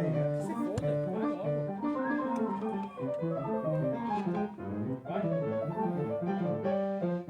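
Electronic keyboard played alone with an organ-like sound during a sound check: moving chords and runs of notes, with a few notes sliding in pitch.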